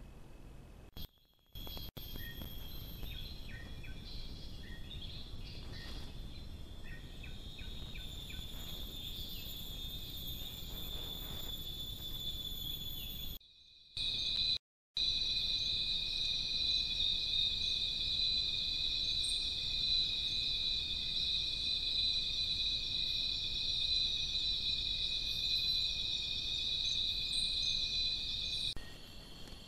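Night insects, crickets among them, calling in a steady high trill, with faint scattered chirps in the first half. The sound cuts out briefly twice, and after the second break, about fourteen seconds in, the chorus is much louder.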